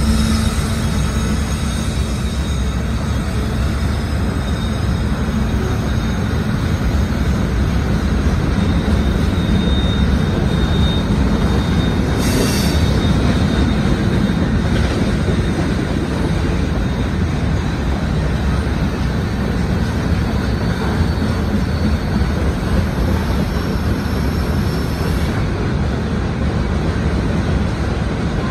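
Freight train's covered hopper cars rolling past, a steady rumble of steel wheels on rail, with a thin wheel squeal for a moment about ten seconds in.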